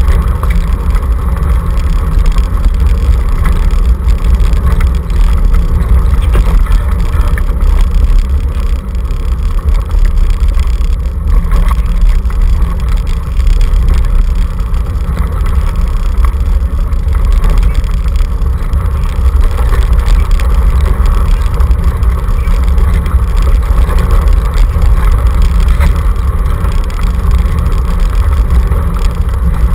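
Dog scooter rolling fast over a gravel road, picked up by a camera mounted on its handlebar: a loud, steady, low rumble with no break.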